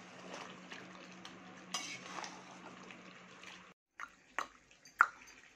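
Metal spatula stirring and scraping chicken curry in a steel kadai, with a faint sizzle and a low steady hum. This stops suddenly about three and a half seconds in and is followed by a few sharp clicks.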